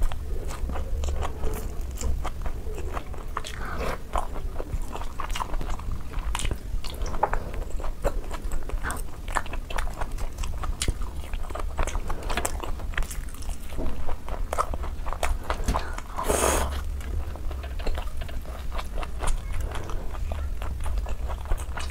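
Close-miked eating: wet chewing and biting of saucy fried chunks and noodles, with many small clicks and mouth smacks, over a low steady hum. One louder, brief rushing noise comes a little past the middle.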